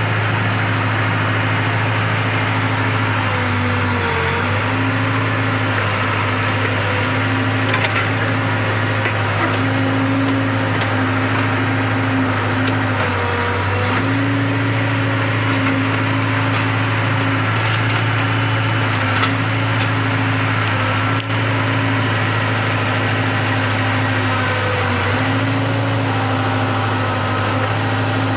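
Case 580-series backhoe loader's diesel engine running steadily, its pitch dipping briefly three times as it takes load, with a few faint knocks.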